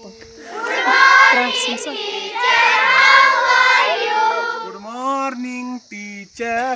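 A group of children singing or chanting an action rhyme together, many voices at once. Near the end the group drops away and a single voice carries on alone in steady held notes.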